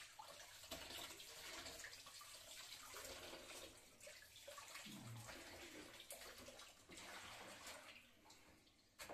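Faint sound of water being handled, with a few light knocks.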